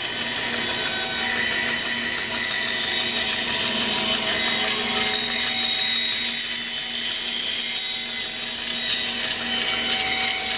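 Woodworking band saw with a narrow 1/8-inch blade running steadily and cutting a curve through a pine board: a constant motor hum under the hiss of the blade in the wood.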